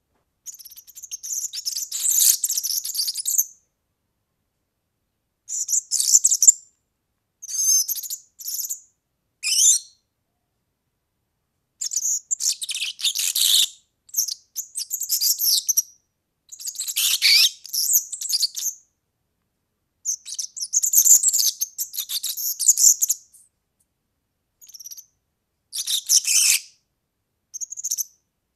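European serin singing: about ten bursts of its fast, high-pitched jingling song, each half a second to three seconds long, broken by short silences.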